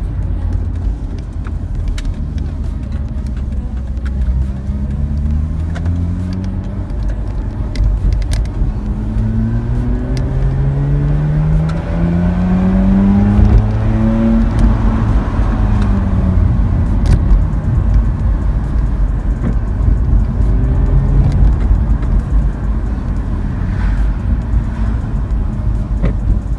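Mazda RX-8's 13B twin-rotor Wankel engine pulling through the gears: its pitch climbs in rising sweeps with short breaks between them, peaks about halfway through, then drops as it eases off and settles to a steadier run.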